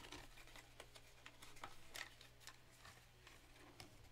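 Faint, scattered clicks and taps of hands handling a trading card in its holder and setting it into a wooden display stand.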